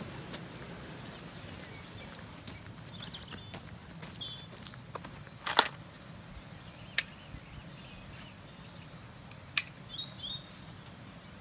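Birds chirping in the background while a bucket is set down on a path with a sharp knock about halfway. Then come two single sharp clicks of garden snips cutting plant stems.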